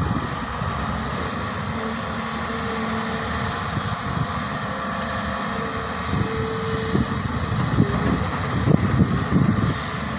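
Hyundai hydraulic excavator's diesel engine running steadily under load as the arm and bucket dig, with a faint hydraulic whine coming and going. Wind rumbles on the microphone.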